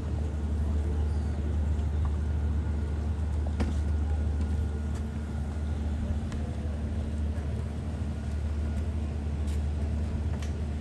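Large motor yacht's engines running during docking: a steady low drone with a faint hum above it and a few light clicks.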